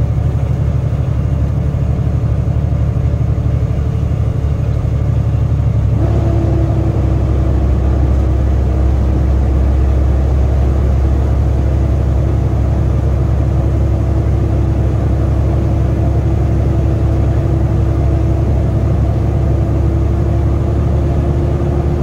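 Semi-truck engine running under way with a deep, steady rumble. About six seconds in, a steady engine tone joins it and rises slowly in pitch as the truck pulls.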